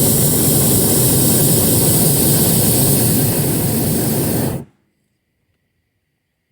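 Hot-air balloon's propane burner firing in one loud, steady blast that cuts off sharply about four and a half seconds in.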